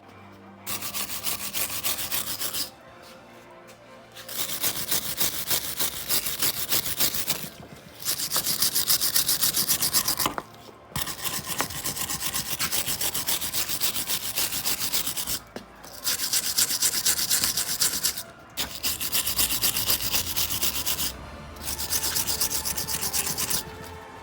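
Scrubbing and scraping on the metal pad-clip tracks of a rear brake caliper bracket, cleaning them out before the clips go in. It comes in about seven bouts of a few seconds each with short pauses between.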